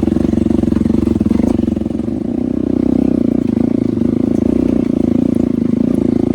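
Hero Impulse motorcycle's 150 cc single-cylinder engine running steadily as the bike is ridden, easing off briefly about two seconds in before picking up again.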